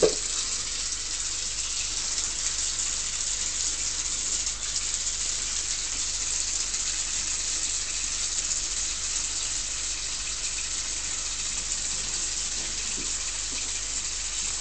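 Bathroom sink mixer tap running a thin stream of water steadily into the basin, an even hiss. A short knock right at the start.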